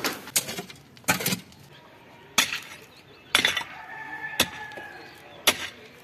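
Pickaxe striking stony soil while digging, about six blows roughly a second apart, each a sharp crunching knock.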